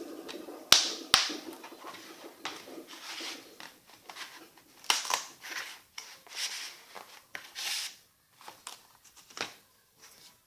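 Plastic disc-case packaging being handled: crinkling and rustling, with two sharp clicks about a second in and scattered smaller ticks after.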